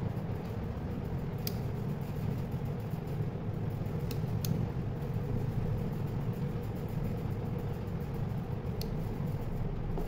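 Small DC gear motor running steadily, a low, even hum from the motor and its gearbox. A few light clicks come through over it.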